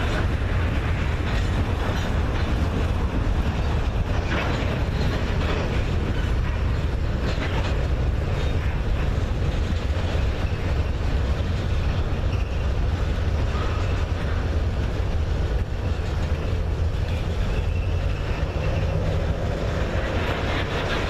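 Freight train rolling past: a steady low rumble with wheels clicking irregularly over rail joints.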